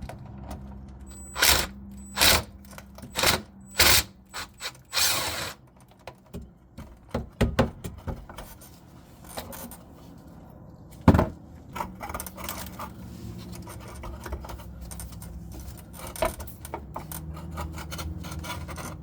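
Hand tool work on a fuel-filter hose clamp, loosening it to free the engine-side hose. There is a quick run of sharp clicks and scrapes in the first few seconds, a single loud knock near the middle, then scattered lighter clicks.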